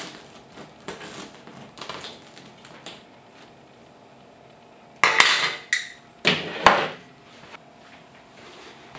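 Metal clatter of a bread-maker kneading paddle and its removal hook knocking against the metal loaf pan, in two loud bursts about five and six and a half seconds in. Before them come light scraping and tapping.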